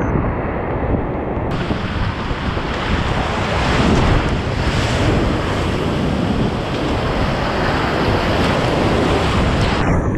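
Whitewater rapids rushing loudly around a kayak, heard close up from the paddler. The sound is duller at first and turns brighter about a second and a half in.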